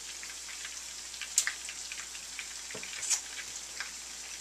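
Bacon-wrapped chicken shallow-frying in hot grease in a skillet: a steady sizzle with scattered crackling pops, two sharper pops about one and a half seconds and three seconds in.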